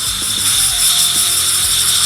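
A small high-speed power tool runs steadily with a high whine for about two seconds and then stops. It is working metal out of the accumulator feed hole in a 4L60E transmission case, where a check ball had been hammered in.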